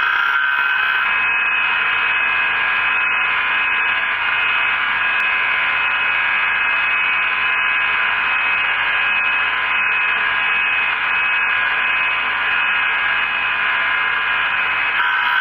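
Clarkson tool and cutter grinder running, its wheel grinding the flute of an old drill bit to sharpen it: a steady hiss with a high whine.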